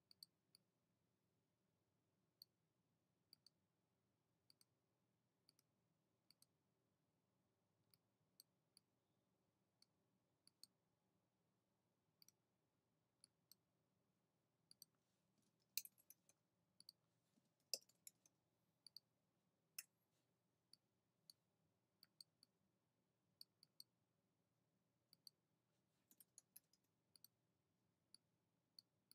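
Faint, scattered clicks of a computer mouse, many coming as quick double clicks, with a denser run of clicks about halfway through over near silence.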